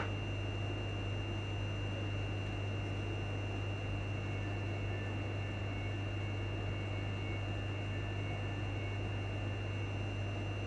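Steady hum inside the passenger saloon of a stationary Class 334 electric multiple unit, its onboard equipment running: a low drone with a thin high whine above it.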